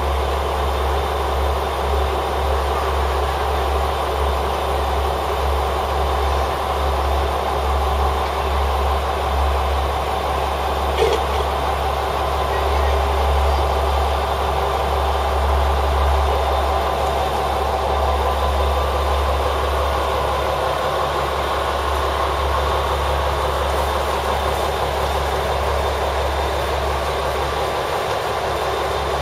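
Diesel engine of a KiHa 40-series railcar idling steadily while the train stands at the platform, a constant low rumble. There is a single brief click about eleven seconds in.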